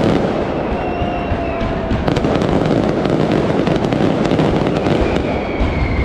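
Mascletà firecrackers going off in a dense, continuous barrage of rapid bangs, with a high whistle or two over them.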